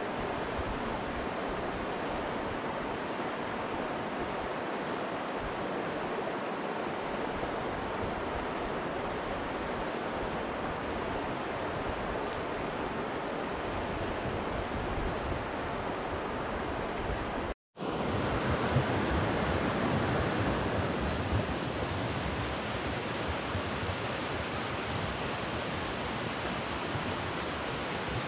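Steady rushing outdoor noise with no voices or music. About two-thirds of the way through it cuts out for an instant at an edit, then returns a little louder with more low rumble.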